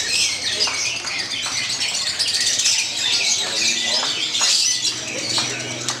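Fischer's lovebird singing a long, continuous stream of high, rapid chattering chirps.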